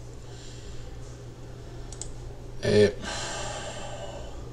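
A brief, loud vocal sound from a person close to the microphone, about two and a half seconds in, followed by a breathy hiss lasting a little over a second. Faint computer clicking sits underneath.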